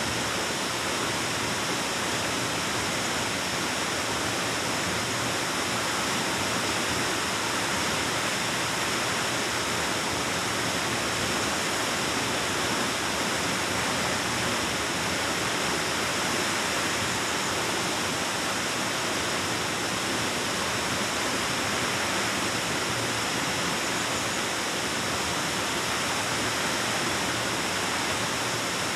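Waterfall pouring into a plunge pool, a steady, even rush of falling water that echoes in the cave.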